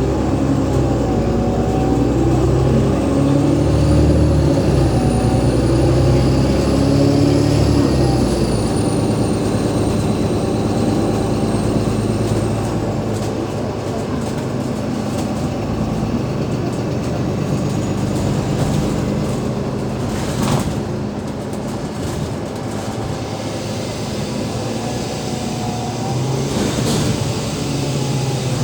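Cummins ISL8.9 diesel engine of an Alexander Dennis Enviro500 MMC double-decker bus running under load, heard from inside the bus. A faint high-pitched whine comes in about two seconds in and fades out near twelve seconds. The engine's deep note eases off after about eight seconds, leaving steady running noise.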